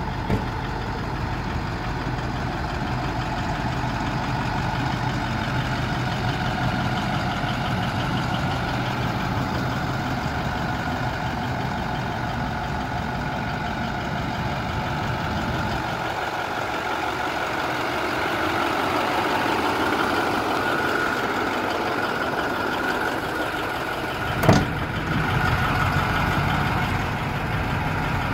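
International TerraStar box truck's MaxxForce 7 V8 diesel idling steadily. A single sharp clack comes near the end.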